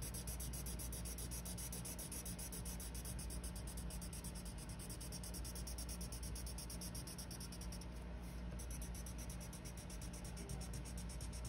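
Felt-tip marker scribbling on paper in quick, even back-and-forth strokes while coloring in a shape, with a brief pause about eight seconds in.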